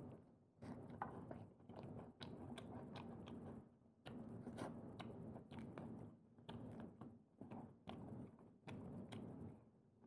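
Quiet close-up chewing of peeled prawns: irregular wet mouth smacks and small clicks, coming in short runs throughout.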